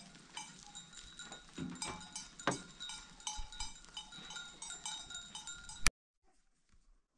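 Bells worn by a herd of goats clinking irregularly, several small bells at a few pitches ringing over one another. The clinking cuts off suddenly about six seconds in.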